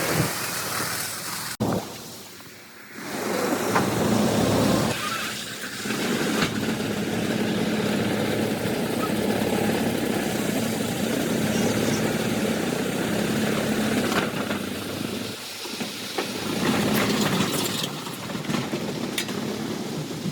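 Heavy machinery running loud and steady, a low hum over a wide clattering noise, with abrupt changes between short stretches.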